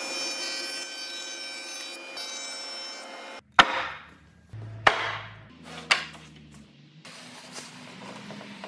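Router table's dovetail bit spinning with a steady whine, cut off abruptly after about three and a half seconds. Then three sharp wood-on-wood knocks about a second apart, followed by a hardwood block rubbing as it is pushed down into a dovetail slot.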